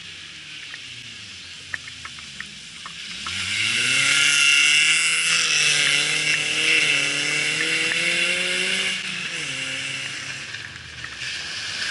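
Rally car engine at a distance, coming up about three seconds in and revving hard, its pitch rising and falling with gear changes and throttle. It drops back briefly near the end, then picks up again.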